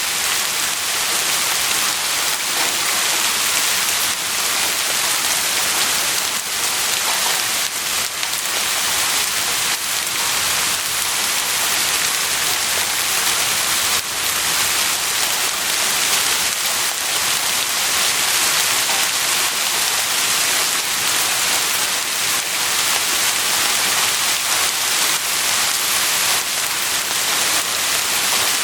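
Heavy rain falling steadily, a dense even hiss of drops striking a surface.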